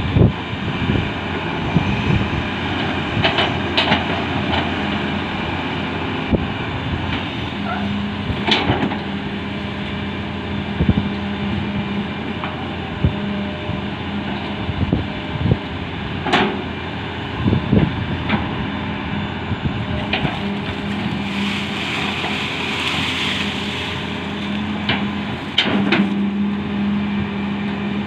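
Hitachi excavator's diesel engine running steadily under hydraulic load, its note rising for stretches as it digs and swings. Scattered sharp knocks and clatter of earth and stone, with a brief rushing hiss of material pouring about two-thirds of the way in.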